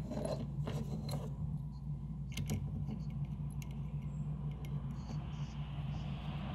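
Light metallic clicks and knocks of a steel C-clamp being handled and screwed tight onto an aluminium straightedge guide and the edge of a wooden sheet, over a steady low hum. The clicks come in a cluster early on and turn to fainter ticks as the clamp is tightened, and a faint hiss begins to rise near the end.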